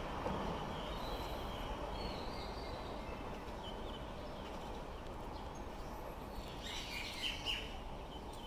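Steady outdoor background noise with small birds chirping now and then, a brief flurry of chirps about seven seconds in.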